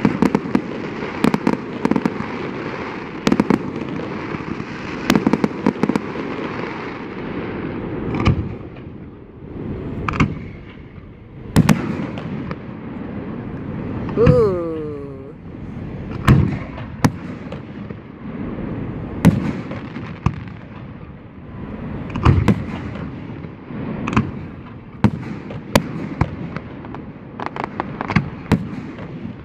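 Fireworks display: repeated shell bursts and crackling, with a whistling firework whose pitch rises then falls about halfway through.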